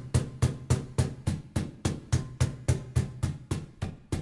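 Meinl cajón played with open, undamped finger strokes near the top edge (its snare sound): an even run of sharp slaps at about three to four a second, each leaving a low ringing tone under the snap.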